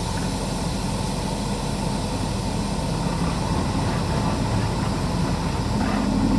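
Semi-truck diesel engine idling steadily, heard from inside the cab.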